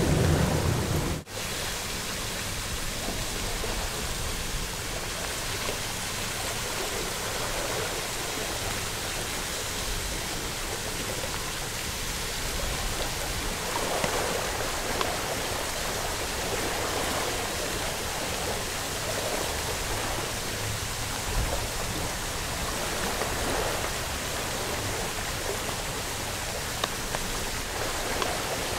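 Steady, even hiss of water noise, with a few faint knocks and swells.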